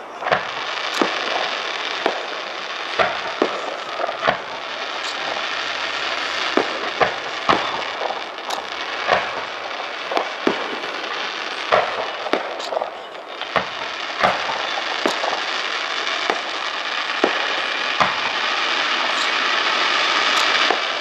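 Fireworks display: aerial shells bursting in a string of sharp bangs, roughly one a second, over a continuous hiss. The hiss swells louder near the end.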